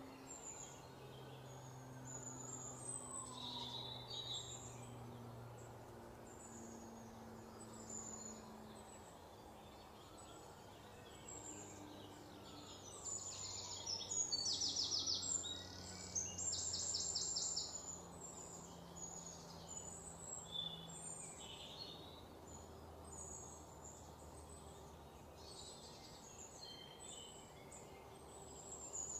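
Birds chirping and twittering in the background, with a louder rapid trill about halfway through, over a faint low steady hum.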